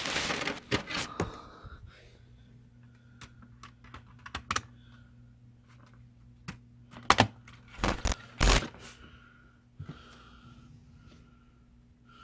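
Scattered small plastic clicks and knocks of a disc being handled at an open desktop DVD drive tray, with a faint steady hum underneath. A few louder clacks come about seven to eight and a half seconds in.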